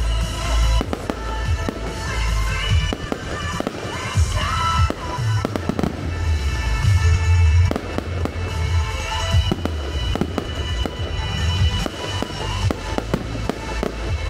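Aerial fireworks shells bursting in a rapid series of deep booms, sharp bangs and crackles, over music.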